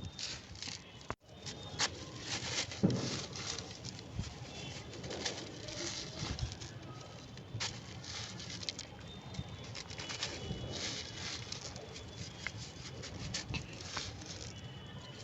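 Crunchy, brittle material being crumbled and crushed on a floor: a steady run of irregular crackling crunches that breaks off for an instant about a second in.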